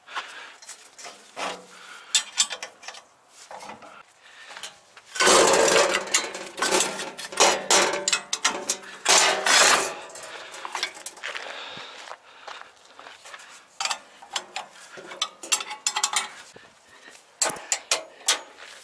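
Metal clanking and scraping as the aluminium loading ramps and a lashing chain are handled on the trailer's steel deck, with a louder stretch of dense scraping and rattling from about five to ten seconds in.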